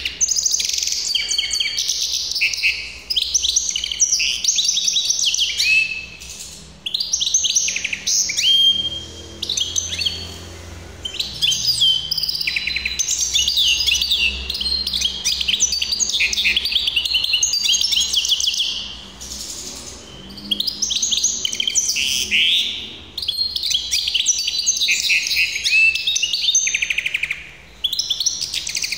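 Caged hybrid finch (mule) singing long, fast phrases of high twittering trills and notes, with a few short pauses between phrases.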